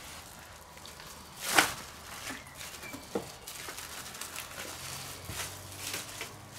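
Plastic cling film rustling and a stainless-steel grooved mould being handled on a wooden board as pressed minced meat is turned out of it, with one louder swish of the film about a second and a half in and a few light knocks and rustles after.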